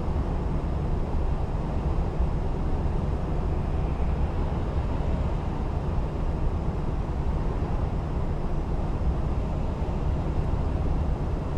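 Steady in-cab drone of a lorry cruising at motorway speed: engine and tyre-on-road noise, an unchanging low rumble.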